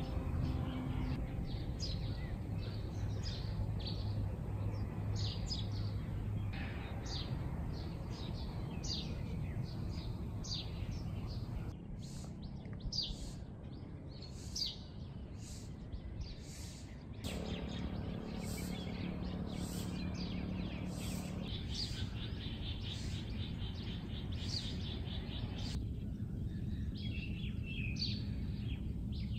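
Birds chirping outdoors, short high calls repeating every second or so over a steady low hum. The background changes abruptly a few times between takes.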